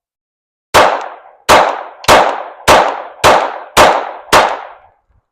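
Glock 44 .22 LR pistol firing seven shots at a steady pace, a little over half a second apart, each shot followed by a short ringing echo.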